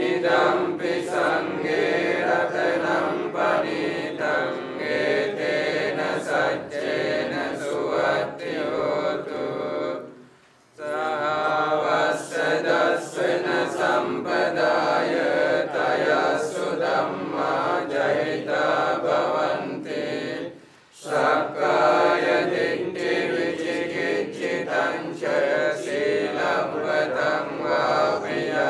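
Buddhist monks chanting Pali blessing verses together in a steady, continuous group chant. It drops out twice for a breath, about a third and two thirds of the way through.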